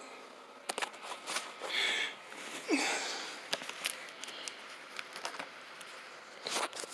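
Foil balloon being handled: scattered crinkles and taps on its surface. The loudest is a short squeak sliding down in pitch about three seconds in.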